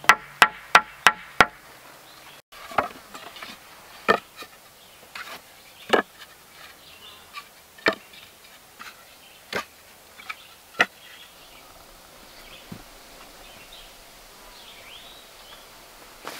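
A quick run of sharp knocks, about three a second, stopping about a second and a half in. After a short break, single sharp knocks follow every second or two and die away toward the end.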